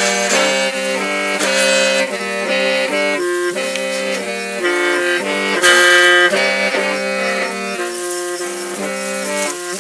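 Hmong qeej (lusheng), a bamboo free-reed mouth organ, playing a melody as chords of several reeds sounding together over a steady low drone, the notes changing every fraction of a second.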